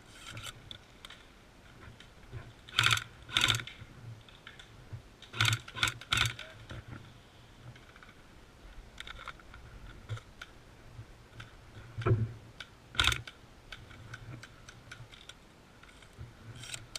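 Airsoft guns firing single shots: sharp snaps in ones, twos and threes, the loudest about three seconds in, around six seconds in and again near thirteen seconds, with lighter clicks and rattles between.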